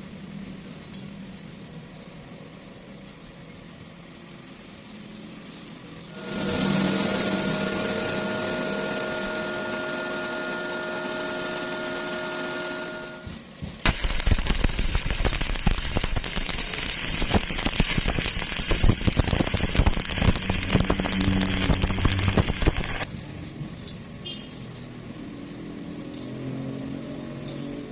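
Electric arc welding: a dense, loud crackle of the arc that starts suddenly about 14 seconds in and stops about 9 seconds later. Before it, a steady machine whine with a few even tones runs for about 7 seconds over a low hum.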